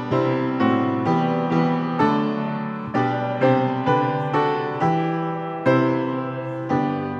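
Piano playing a slow run of chords, each struck sharply and left to ring, about one every half second to second. The last chord, struck near the end, fades away.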